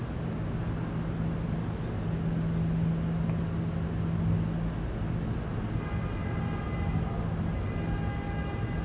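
New York City subway train noise: a steady low hum under continuous rumble. About six seconds in, several high, steady whining tones join it.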